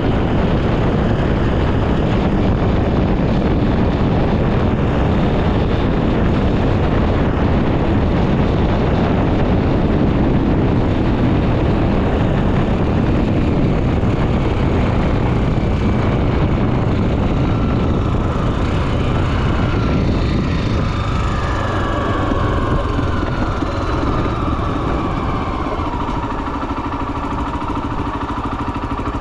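Honda XR 250 Tornado's single-cylinder four-stroke engine running while the motorcycle is ridden, under a dense rush of wind noise. About two-thirds of the way through, the wind noise eases and the engine note falls as the bike slows.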